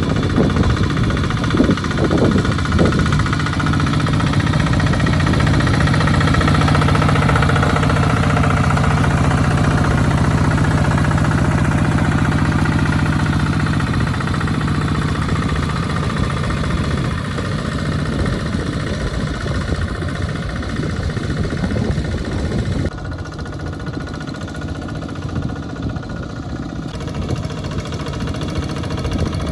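Walking-tractor diesel engine running steadily under plowing load in a wet rice paddy, with a fast even firing beat; it eases off a little about halfway through.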